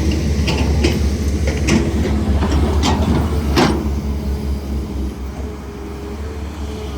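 CAT hydraulic excavator's diesel engine running with a steady low rumble, with about seven sharp knocks and clanks over the first four seconds that then stop.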